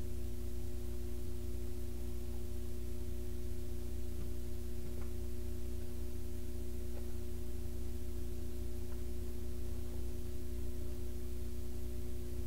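A steady low hum with two steady held tones, and a few faint ticks and rustles as a picture-book page is turned by hand.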